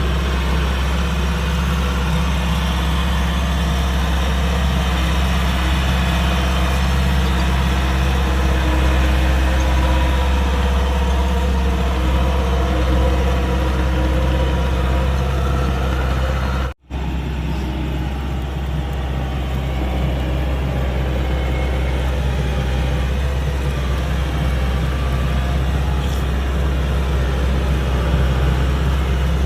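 Kubota DC-105X combine harvester's diesel engine running steadily with a deep, even drone. The sound drops out for an instant about two-thirds of the way through, then the same drone carries on.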